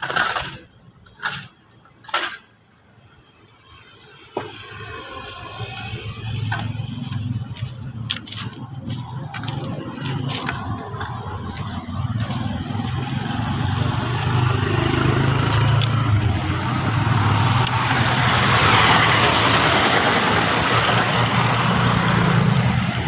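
A motor vehicle's engine running with a steady low hum, growing louder over about fifteen seconds and easing slightly near the end. It follows a few short, sharp sounds in the first two seconds.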